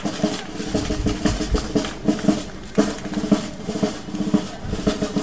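Marching drums in a street procession, snare drums beating and rolling in rapid strokes.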